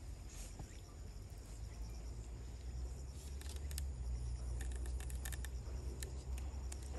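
Low engine rumble of an approaching KiHa 47 diesel railcar, growing steadily louder, with faint insect chirps over it.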